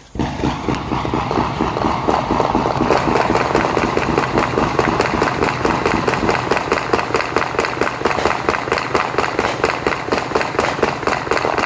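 A long string of firecrackers going off: rapid sharp pops, several a second, without a break.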